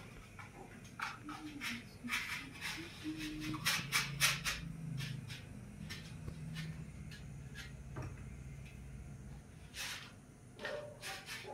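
Scattered light clicks and knocks of kitchen items being handled at the counter, over a low steady hum.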